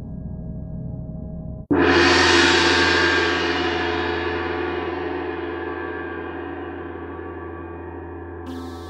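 A low drone cuts off, then a single gong-like metallic strike about two seconds in, ringing with many overtones and fading slowly. A synth melody begins near the end.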